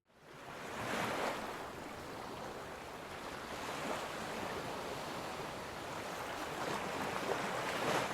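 Ocean waves washing in: a steady surf hiss that swells about a second in and again near the end.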